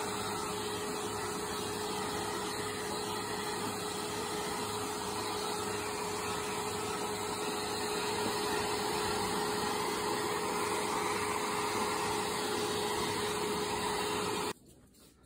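Hair dryer blowing steadily: a continuous rushing of air with a steady motor hum, cut off suddenly near the end.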